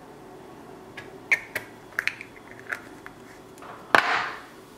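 Small clicks and taps of a hard gel pot being handled on a table, then a louder knock about four seconds in as it is set down.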